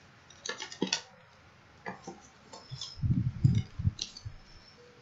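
Cards and packing being handled and taken out of a cardboard subscription box: paper and card rustling with scattered light clicks and taps, and a few soft thuds about three seconds in.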